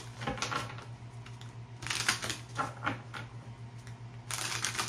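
Tarot cards being shuffled and handled: several short runs of quick card clicks and flicks, the longest and loudest near the end, over a steady low hum.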